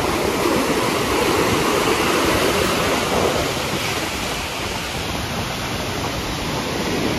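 Ocean surf breaking and washing up the shore, a steady rush of water.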